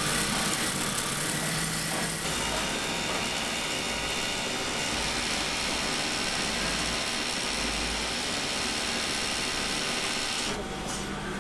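Several industrial sewing machines running together in a steady whirring clatter, which cuts off sharply shortly before the end.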